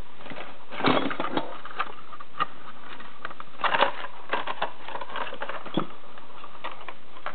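Loose hand tools in a tool box drawer clinking and knocking as they are handled, in a few scattered clusters of sharp clicks.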